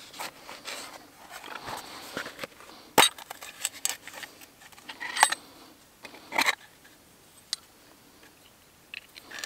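A leather roll being unrolled and handled with soft rustling, then a small metal tin of fire-lighting kit clicking open. A few sharp clicks and clinks follow as the steel striker and stones shift against the tin and the char cloth is picked out.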